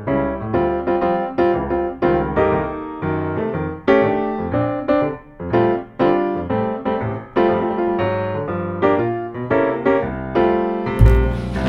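Background music: a piano playing a continuous run of struck notes, each fading before the next. Near the end a louder, fuller track with deep bass cuts in.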